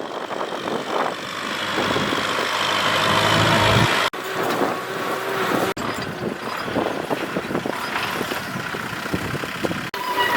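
Tractor engine running under load while plowing, swelling louder about three to four seconds in.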